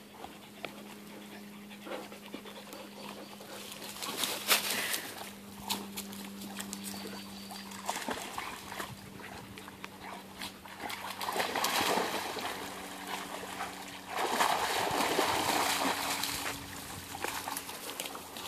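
Dogs swimming and wading in a shallow pond: water splashing and trickling as they paddle and step through the shallows, loudest in two stretches in the second half, over a faint steady low hum.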